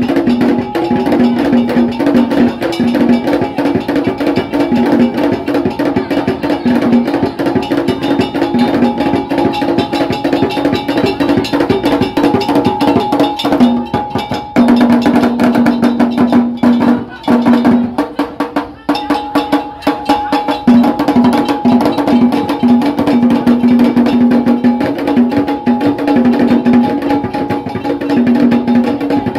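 Ghanaian traditional drumming with dense, fast drum and percussion strokes over a steady held tone. It thins out briefly a little past the middle.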